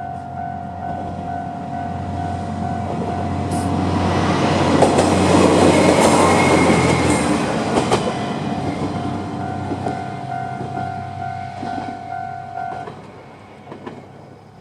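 A Kanto Railway KiHa 5000-series diesel railcar passes over a level crossing. Its engine and wheel noise builds to a peak about five to seven seconds in, with clicks from the wheels, then fades. The crossing's electronic alarm bell rings in a fast repeating tone and stops about thirteen seconds in, as the train clears the crossing.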